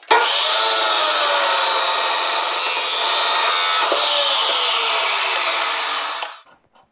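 Abrasive chop saw cutting through a cast iron bushing: a loud, steady grinding cut that starts abruptly and stops suddenly after about six seconds, with a whine falling in pitch partway through.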